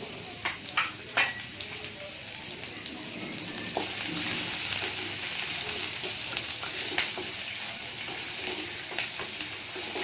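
Chopped onion and curry leaves sizzling in a spoonful of hot oil for a tempering: a steady frying hiss, with a few sharp clicks in the first second or so.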